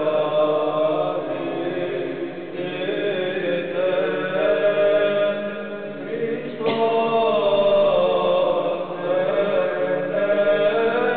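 Voices chanting in long, sustained notes that move slowly in pitch; a new, louder phrase begins a little past halfway.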